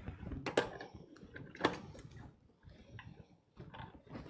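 Sharp metal clicks and knocks as a pasta roller attachment is handled and fitted back into a stand mixer's attachment hub, two louder ones in the first two seconds and fainter taps after.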